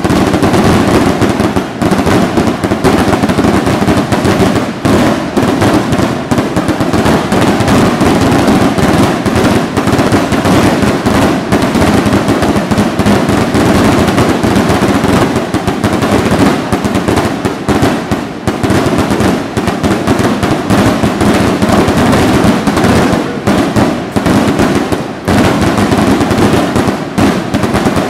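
A dense fireworks barrage: many shells bursting and crackling in quick succession, a continuous run of loud bangs and crackle with no pause.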